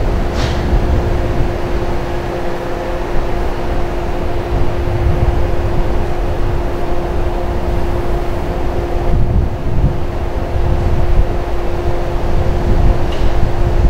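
Standing Shinano Railway 115-series electric train idling, with a steady hum holding one constant tone over a low rumble.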